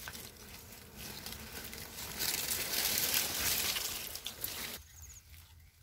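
Dry twigs, stems and leaves rustling and crackling as brush is pushed and handled, loudest in the middle and cutting off sharply near the end, after which a faint high trill is heard.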